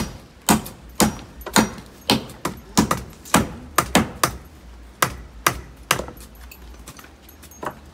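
Repeated blows of a hand tool on wood, about two to three a second, stopping about six seconds in, then one last blow near the end.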